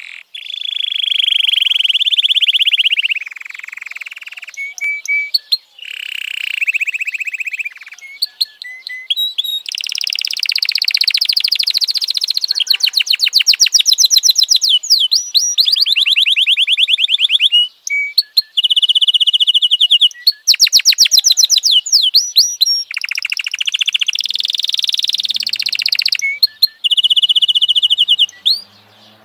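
F1 domestic canary singing a long, varied song: steady whistled notes alternating with very fast trills and buzzy rolls, with short breaks between phrases.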